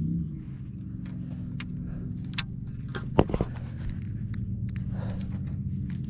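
Bow-mounted electric trolling motor humming steadily, its pitch swelling briefly at the start. A few sharp clicks and knocks sound over it, the loudest about three seconds in.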